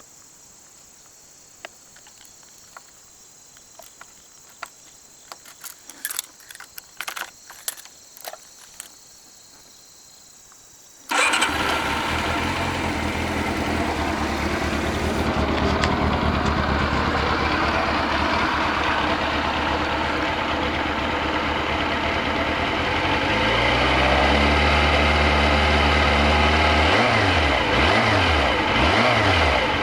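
Scattered clicks and knocks, then about eleven seconds in the Honda CB400 Super Four (NC31) inline-four engine starts and runs steadily. Later the revs rise, and near the end they go up and down a few times.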